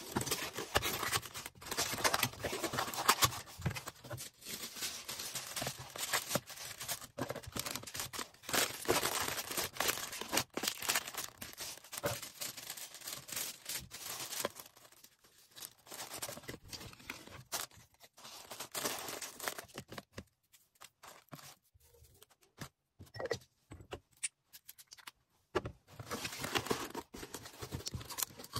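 Packing an order by hand: plastic packaging crinkling and rustling, with tearing sounds and small taps and clicks. It thins out to scattered clicks for a few seconds late on, then the rustling picks up again.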